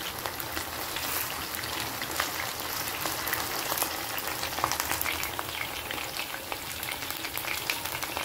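Chicken pieces shallow-frying in hot oil, turned and now cooking on the second side: a steady sizzle full of small crackles and pops.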